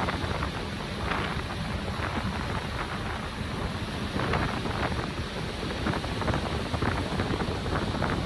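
Wind buffeting the microphone on a moving ferry's open deck, in uneven gusts over a steady low rumble, with water rushing past the hull.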